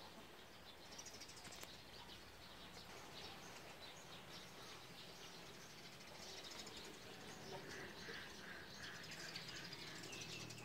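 Faint birds chirping and calling over quiet outdoor background noise, with a short run of repeated notes about eight seconds in.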